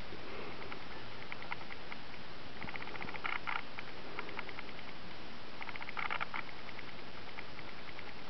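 Steady hiss with a rapid clicking chatter that comes in two dense runs, about three and six seconds in, and scattered single ticks between.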